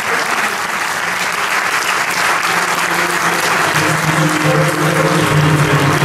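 Theatre audience applauding through the cast's curtain-call bows. Music with long held notes fades in about halfway through and grows louder toward the end.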